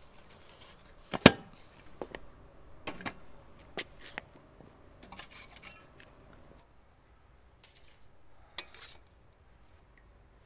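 Aluminium pressure cooker lid being put on and closed: a sharp metal clank about a second in, followed by several lighter knocks and clatters of pot and lid.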